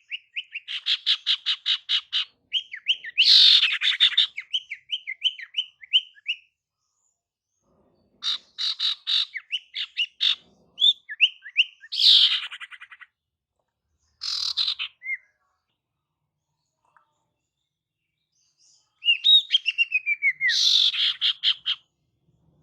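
Female sirtu (cipoh) calling: several phrases of rapid chattering notes mixed with short sliding whistles, with brief pauses between phrases. It is the female's call that is used to lure males.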